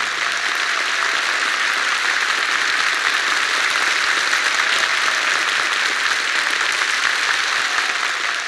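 A large hall audience applauding steadily, a dense even clapping.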